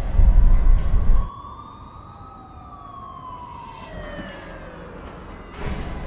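A siren wailing in one slow rise and fall. A deep low rumble, the loudest sound, runs under it and stops about a second in.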